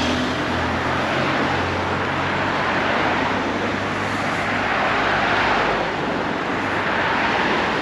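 City street traffic: a vehicle's engine holding a low steady hum, then a swell of passing traffic about five seconds in.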